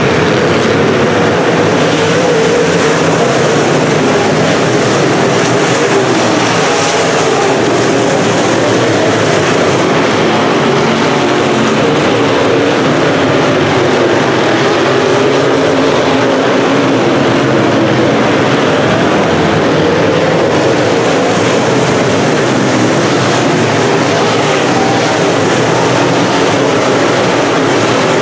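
A pack of UMP dirt modified race cars running laps on a dirt oval: many V8 engines blending into one dense, steady engine noise, its pitch wavering up and down as the cars circle.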